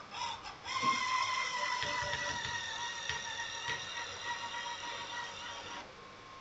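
Small electric motor on an RC tow truck's lifting arm whining steadily for about five seconds as the arm moves. Its pitch sinks slightly before it cuts off suddenly.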